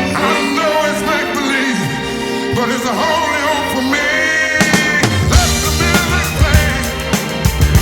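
Recorded song with a sung melody. A heavy drum and bass beat comes in about halfway through.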